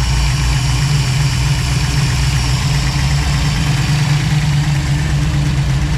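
1967 Chevy Nova's engine idling steadily on a newly fitted FiTech fuel injection system that is still learning its idle.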